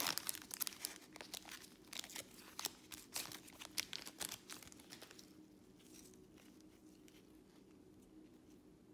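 Foil wrapper of a trading card pack crinkling and tearing as it is opened, a quick run of crackles that dies down about five seconds in to a faint steady background.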